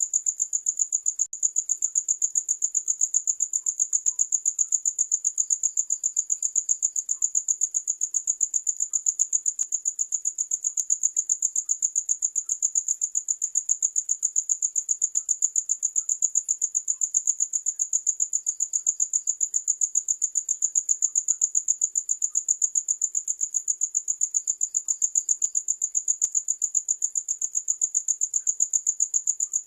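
Crickets chirping steadily: a high-pitched, rapid pulsing at about four to five chirps a second, with a fainter second cricket chirping a little lower now and then.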